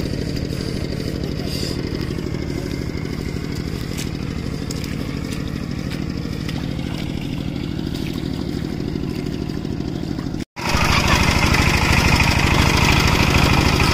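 Engine of a two-wheel tractor (power tiller) running steadily. After a brief dropout about ten seconds in, it is louder and closer.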